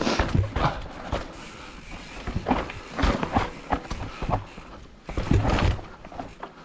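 Mountain bike riding down a dirt trail with edged steps: irregular thumps and rattles as the knobby tyres drop over each step edge, coming in clusters near the start, about three seconds in, and around the five-second mark.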